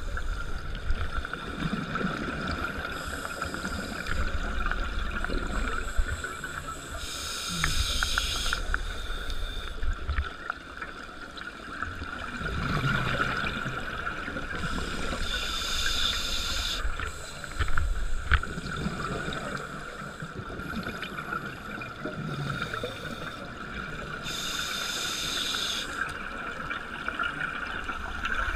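Underwater sound of a scuba diver breathing through a regulator: long bubbling hisses of exhaled air, three strong ones about eight to nine seconds apart, over a steady hum and low rumble.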